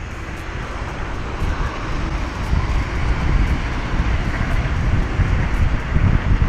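Wind rushing over a bike-mounted action camera's microphone while riding, mixed with traffic rumble; the roar grows slowly louder.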